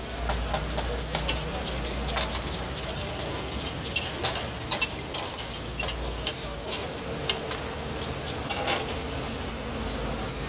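Metal spatula and ladle clinking and scraping against a steel karahi as minced mutton is stirred in its simmering juices: irregular sharp clicks over a steady low hum.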